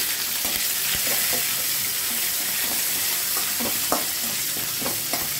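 Curry leaves, crushed garlic and dals sizzling in hot oil in a kadai, a steady loud hiss of a South Indian tempering (tadka). A ladle stirs them, scraping and tapping the pan in short clicks every second or so.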